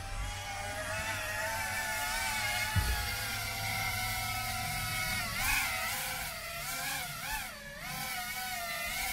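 Whine of a 3-inch FPV quadcopter's RotorX 1404 6500kv brushless motors spinning Gemfan 3028 props. It holds steady, then from about five seconds in wavers up and down in pitch as the throttle is worked. The drone is flying slowly on a nearly flat 3S battery.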